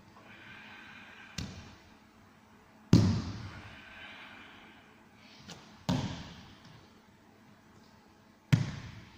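A person's hands and body hitting a training mat: a series of sharp slaps and thuds, four loud and one small, each trailing off in the echo of a large hall.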